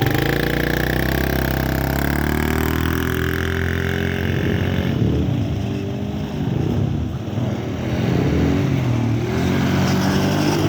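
An ATV engine running as it is ridden. The note is steady for about the first five seconds, turns uneven in the middle, and steadies again near the end.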